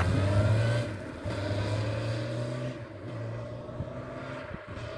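Honda CBR 600 F4's inline-four engine accelerating away, rising in pitch and breaking off briefly where it shifts up, about a second in and again near three seconds, fading as the bike draws off. It is on a test ride after a fix for stumbling at low revs.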